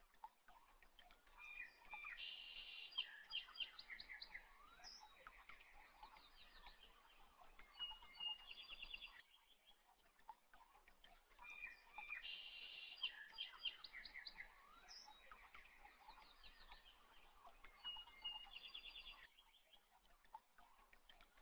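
Faint birdsong: several birds chirping and trilling. The same passage repeats about every ten seconds, like a looped background recording.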